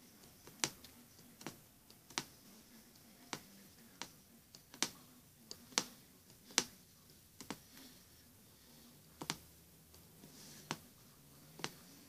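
Punch needle pushing black thread through cloth stretched tight on a wooden embroidery hoop, making a sharp tick with each stroke. There are about a dozen ticks at an uneven pace of roughly one a second.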